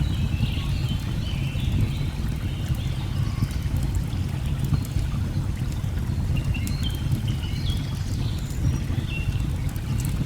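Waterfall rushing steadily in a deep, low roar of falling water, with birds calling over it in short stepped phrases near the start and again in the second half. A few faint crackles.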